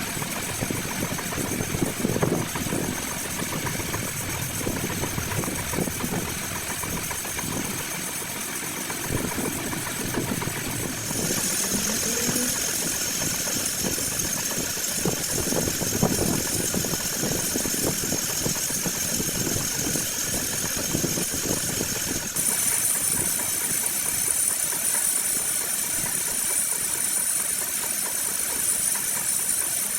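Metal lathe running with steady machine noise and rattle, and a high, thin whine above it; the sound changes abruptly twice, about a third and two thirds of the way through.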